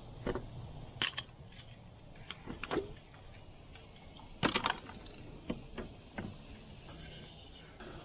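Sharp metallic clicks and taps, scattered and in small clusters, as pliers work a topwater lure's hooks out of a largemouth bass's mouth.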